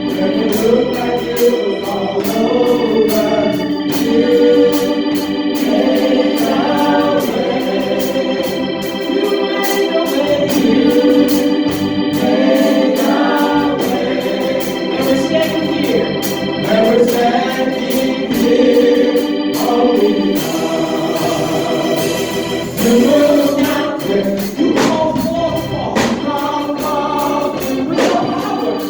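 Organ music: an organ playing held chords that change every second or so.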